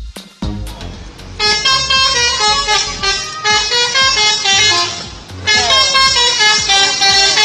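Bus "telolet" horn, a set of electric trumpet horns playing a fast melodic tune of stepping notes. It plays in two loud runs, with a brief break about five seconds in.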